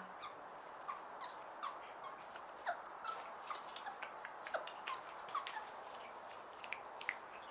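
A small animal giving many short, high squeaks, each dropping in pitch, at an irregular pace.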